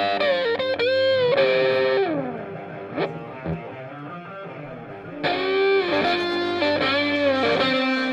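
Background music: a distorted electric guitar playing phrases of bending, sustained notes, with a pause of a couple of seconds in the middle.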